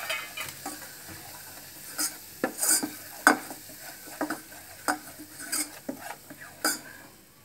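Steel spoon scraping and clinking against a stainless-steel pot, stirring maida flour as it roasts in ghee for a white-sauce roux, with a faint sizzle underneath. The clinks come irregularly, about once a second.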